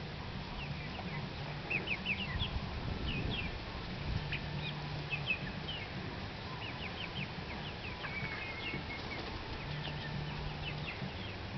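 A flock of young chickens foraging, giving many scattered short, high peeps and chirps.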